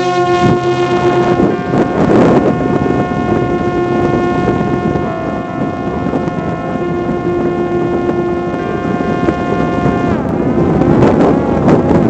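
Parrot Disco fixed-wing drone's electric pusher-propeller motor whining at a steady high pitch under climb power, over wind rush on the microphone. About ten seconds in, the whine falls in pitch as the throttle is eased back.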